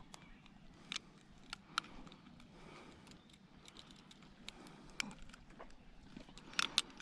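A few scattered sharp clicks and small rattles of metal: fishing pliers and lure hooks being worked while a small zander is unhooked, with two quick clicks close together near the end.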